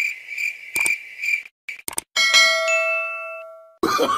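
Crickets chirping, a short high chirp about three times a second, cut off abruptly about a second and a half in. After a couple of clicks, a bright bell chime rings and fades away over about a second and a half: the notification-bell sound of a subscribe-button animation.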